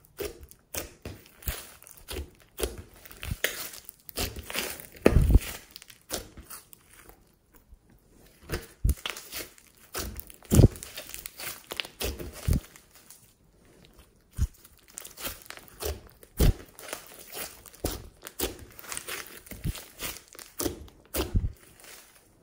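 Hands squishing, folding and pulling a large mass of thick slime with small beads mixed in, giving irregular sticky pops and clicks, two of them louder about five and ten seconds in.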